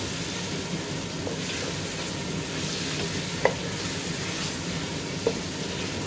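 Sliced onions and chopped tomatoes sizzling in oil in an aluminium pot while a wooden spoon stirs and scrapes them. Two sharp taps of the spoon against the pot come about three and a half and five seconds in.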